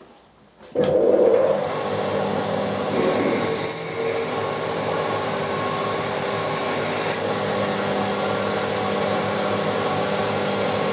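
Milling machine spindle starting about a second in and a 7.9 mm twist drill cutting a pilot hole in a square bar, running steadily. A high steady whine rises over the cut for a few seconds in the middle.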